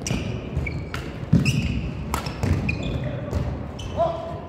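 Badminton play: sharp racket hits on a shuttlecock about once a second, with shoes squeaking briefly on the court floor and low footfall thumps.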